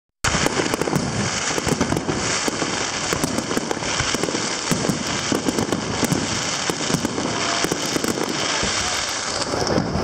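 Aerial fireworks bursting, with a dense, continuous crackle of many small rapid pops from glittering crackle stars.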